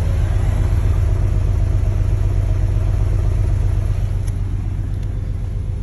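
2006 Infiniti M35's 3.5-litre V6 idling steadily with a low, pulsing drone. It has a random misfire (code P0300) that new spark plugs, a new battery and a new bank-2 camshaft sensor have not cured.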